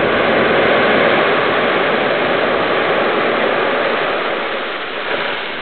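Blasted limestone and dolomite rock pouring down a quarry face just after the blast: a loud, continuous rushing rumble of falling rubble that slowly fades from about four seconds in.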